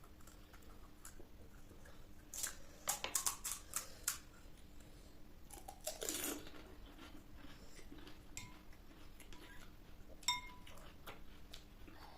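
Dishes and utensils clinking while panipuri is handled and eaten, with a quick run of crisp clicks a couple of seconds in. Near the end comes a single ringing clink, like a metal spoon striking a dish.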